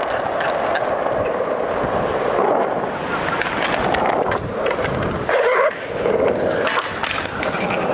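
Skateboard wheels rolling on skatepark concrete: a steady, gritty rolling noise with scattered clicks.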